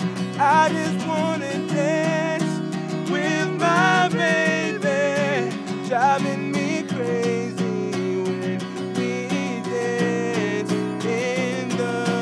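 Acoustic guitar strummed steadily with a man singing over it, his voice sliding and wavering between notes.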